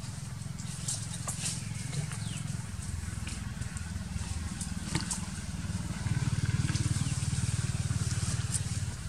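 An engine running steadily with a low rumble that grows louder about six seconds in. Faint scattered clicks sound over it.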